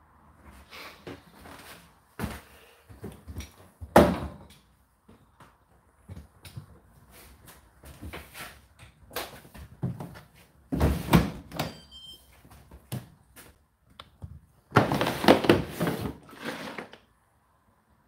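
Plastic knocks and clunks from an Indesit condenser tumble dryer's water reservoir drawer being gripped and pulled, then a longer scraping slide of about two seconds near the end as the condensed-water tank comes out of its housing.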